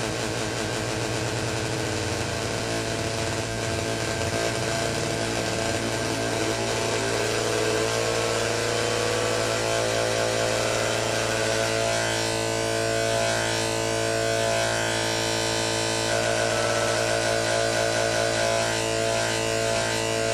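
Analog modular synthesizer sawtooth drone passed through a sawtooth phase-shifter module: a steady, buzzy low note. Its overtones sweep upward over the first several seconds, then pulse and warble as the phase of the wave is modulated.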